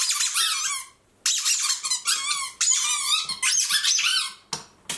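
Squeaky dog toy ball squeezed over and over by hand: high-pitched squeaks with wavering pitch, pausing briefly about a second in and stopping about four and a half seconds in.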